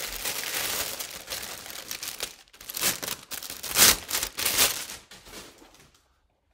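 Thin plastic bag crinkling and rustling as it is pulled off and handled, with a few sharper crackles, the loudest about four seconds in. It dies away after about five seconds.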